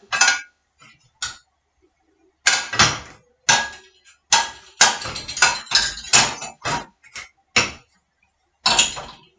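Plates, bowls and cutlery clattering and clinking as they are loaded into the racks of a dishwasher, in quick irregular knocks with short pauses between.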